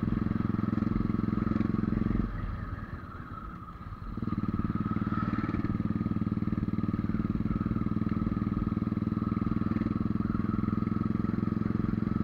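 Motorcycle engine running steadily under way, heard from on the bike, dropping off for a moment about two seconds in and picking back up about two seconds later. At this altitude the rider says the thin air keeps the engine from building power.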